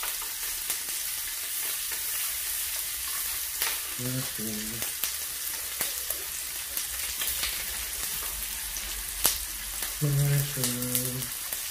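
Meat sizzling on an electric tabletop grill plate: a steady frying hiss with occasional sharp pops.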